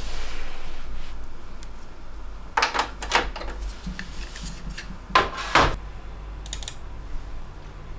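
Handling a portable SSD and its USB cable at a desktop PC tower: a cluster of short clicks and rubbing knocks about three seconds in and another about five and a half seconds in, over a steady low hum.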